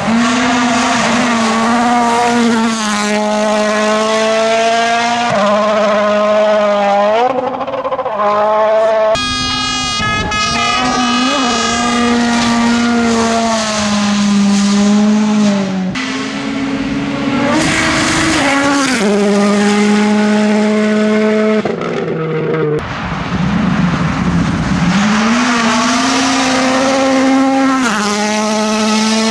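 Turbocharged World Rally Car engines, a Toyota Yaris WRC and a Ford Fiesta WRC among them, running flat out on gravel stages. The engine note holds high and drops in steps at each quick gear change, over the hiss of tyres on loose gravel, as one car after another goes by.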